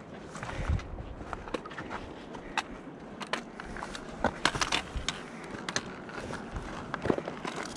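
Irregular sharp clicks and taps of a trekking pole's tip striking granite, with footsteps scuffing over rock.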